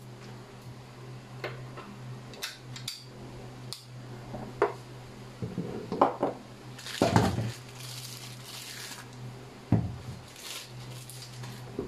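Handling sounds of a plastic PoE power adapter and its cable on a wooden desk: scattered sharp clicks and knocks, then a crinkly rustle of a plastic bag for a couple of seconds in the middle as a device is unwrapped, and a dull thump near the end as it is set down, over a steady low hum.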